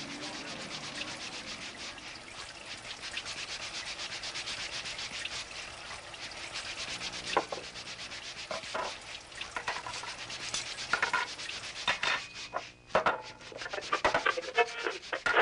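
Dry, rapid scratching or rubbing, many small strokes a second, thinning into scattered sharper clicks with gaps near the end.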